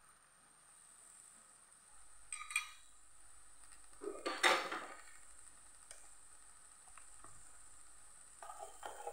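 Spatula scraping and clattering against a thin metal wok while long beans and tempe are stir-fried, in three short bouts: one about two seconds in, the loudest around four to five seconds, and a smaller one near the end. A faint steady high hiss runs underneath.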